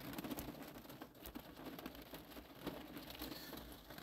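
Faint room noise with a few soft clicks and crackles.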